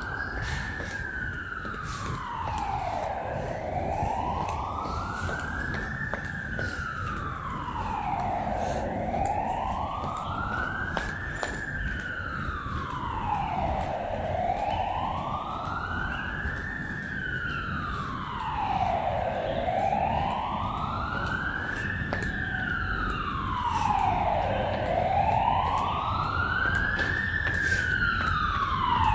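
A siren wailing in a slow, steady rise-and-fall cycle of about five seconds, repeating about six times and growing louder near the end as it draws closer.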